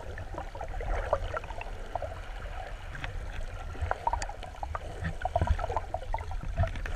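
Underwater water sound heard by a submerged camera: a low steady rumble with many small scattered clicks and crackles.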